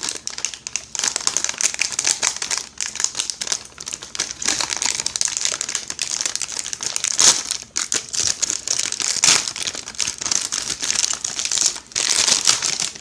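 Plastic snack packaging crinkling and crackling as it is handled and opened, in a long run of small crackles with a few short pauses.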